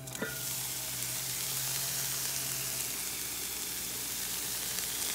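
Ground bison sizzling as it fries in ghee in an open pan: a steady hiss. A faint low hum underneath stops about three seconds in.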